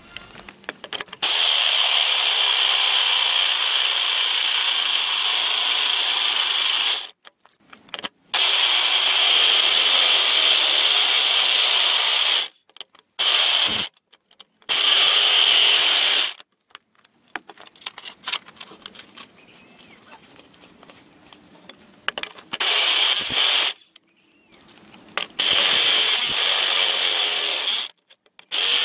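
Rotary hammer drill with a large twist bit boring through a steel flat bar, run at reduced power through a speed regulator. It runs in about seven bursts of one to five seconds with a steady high whine, stopping and restarting between them.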